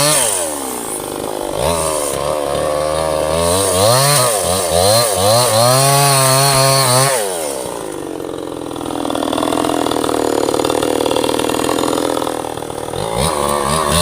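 Two-stroke chainsaw cutting a teak log, its engine pitch swinging up and down for about the first seven seconds. It then runs at a steadier, lower pitch and rises and falls again near the end.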